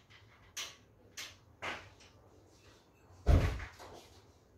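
A single dull thump about three seconds in, with a few faint knocks before it.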